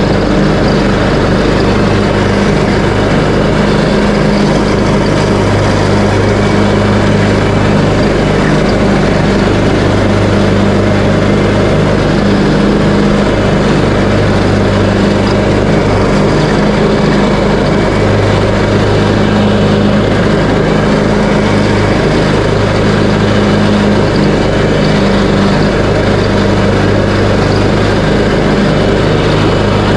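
Craftsman T130 riding lawn tractor running steadily while mowing, its engine holding an even hum with the cutting deck engaged.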